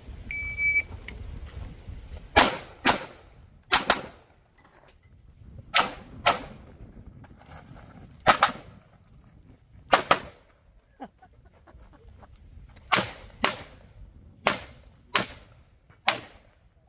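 An electronic shot timer's start beep, then a pistol firing more than a dozen shots, mostly in quick pairs, with gaps between the groups as the shooter moves through the stage.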